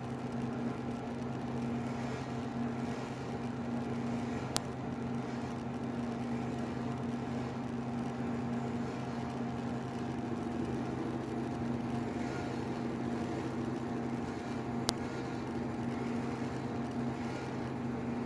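A steady mechanical hum, like a small motor or fan running, with two sharp clicks about ten seconds apart.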